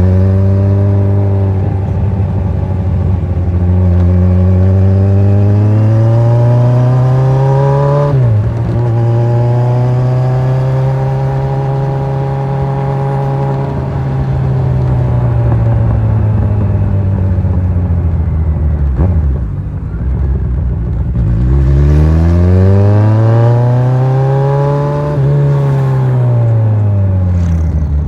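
Kawasaki Z1000 inline-four engine under way, revs rising and falling through the gears. There is a quick gear change about eight seconds in and a long slowdown in the middle. Then comes a fresh pull with another shift near the end before the revs drop away.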